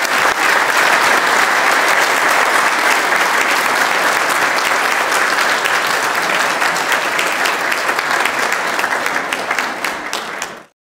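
Audience applauding: a dense, steady mass of clapping that thins slightly toward the end and stops abruptly.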